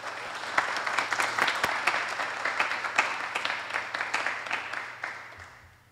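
Audience applause: many people clapping, swelling in the first second and dying away near the end.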